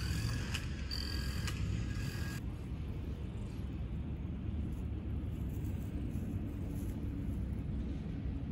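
Domestic cat purring steadily, a low continuous rumble, while its chin is stroked. During the first couple of seconds there are also faint high steady tones with a few clicks, which cut off abruptly.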